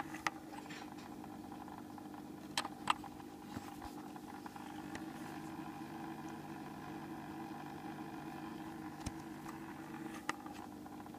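Tetra VX-75 aquarium power filter's replacement motor head running with a steady hum, an abnormal noise for this filter. A few sharp clicks stand out: one just after the start, two about two and a half seconds in, and one near the end.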